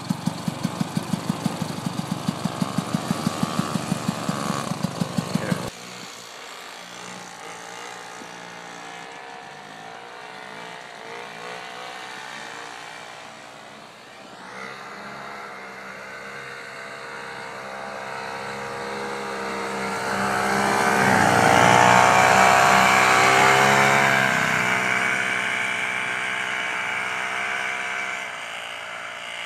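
Vintage snowmobile engines running. For the first six seconds a close engine pulses with a regular beat, then cuts off suddenly. A snowmobile is then heard at a distance, its pitch wavering with the throttle, growing louder to a peak about three-quarters of the way through as it passes near, and fading again.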